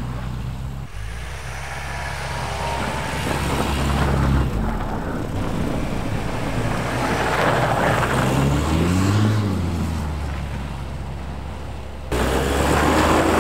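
1984 Volvo 245's red block four-cylinder engine running under way with road noise, the engine note building as it accelerates and easing off more than once. The sound changes abruptly about twelve seconds in.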